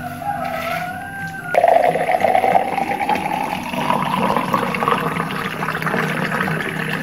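Soda water poured from a plastic bottle into a tall glass full of ice. The pour starts quietly, grows louder about a second and a half in, and rises steadily in pitch as the glass fills.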